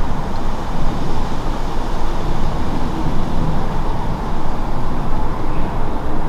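Airbus A330-700 Beluga XL at cruise altitude, its twin Rolls-Royce Trent 700 jet engines heard from the ground as a steady, distant low rumble.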